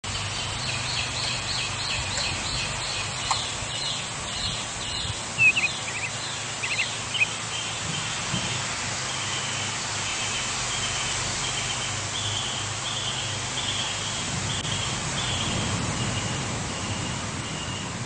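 Repeated high-pitched chirping from a small animal, about three chirps a second and a little slower in the second half, over a steady background hiss and low hum. A few sharp knocks come around five to seven seconds in.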